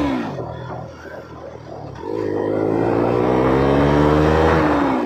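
Single-cylinder sport motorcycle with an aftermarket exhaust. Its note dies away at first, then about two seconds in the engine pulls hard with the pitch climbing steadily, and near the end the throttle is shut and the note drops off.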